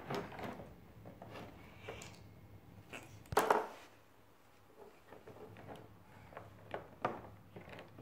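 Scattered light plastic clicks and knocks as the crank of a Play-Doh Perfect Twist ice cream machine is turned and toy pieces are handled, with one louder clatter about three and a half seconds in.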